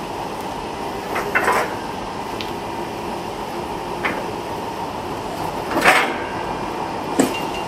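A forklift runs steadily while handling a large warp beam of yarn, with a faint steady tone over its hum. Metal clunks and knocks come four times: a quick double about a second and a half in, then single ones, the loudest about six seconds in.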